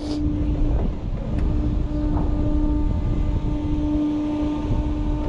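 Fabbri Booster thrill ride's drive humming steadily as its arm swings the gondola slowly upward, the hum dropping out briefly a couple of times, over wind rumbling on the microphone.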